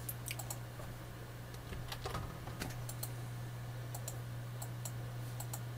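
Irregular clicks from a computer mouse and keyboard as files are selected and copied, over a steady low hum.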